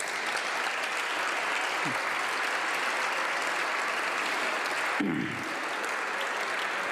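Sustained applause from a chamber full of parliamentary deputies, clapping steadily with a slight drop in level about five seconds in.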